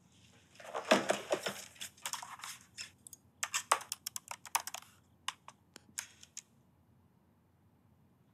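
Typing on a laptop keyboard: a clattering burst about a second in, then quick runs of keystrokes, and a few separate key taps near the end.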